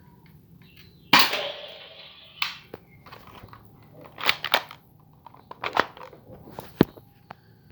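Blackmamba P355 spring airsoft pistol being cocked and fired: a series of sharp snaps and clicks. The loudest comes about a second in and trails off over about a second; single snaps follow at intervals of one to two seconds.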